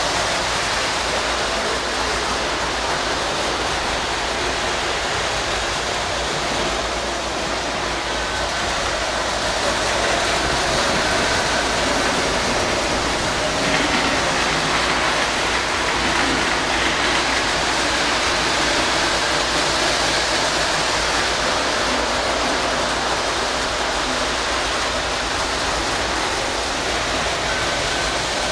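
O gauge model trains running on three-rail metal track: a steady whir of wheels and motors.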